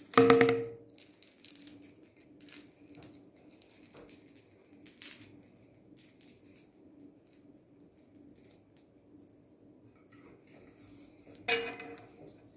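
Household handling noises: scattered light clinks and taps, like dishes and utensils, over a faint steady hum. Two loud, short pitched sounds stand out, one at the very start and one near the end.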